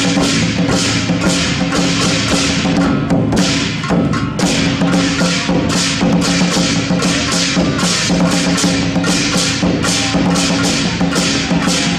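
Large barrel drum beaten with sticks together with clashing pairs of hand cymbals in a steady beat, about three cymbal clashes a second. The playing eases briefly about three to four seconds in, then carries on.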